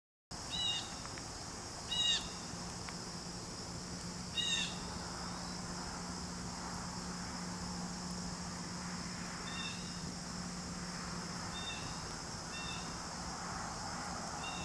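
Evening outdoor ambience: a steady high-pitched drone of insects, with a short chirped animal call repeated seven times, the first three louder. A faint low hum runs underneath.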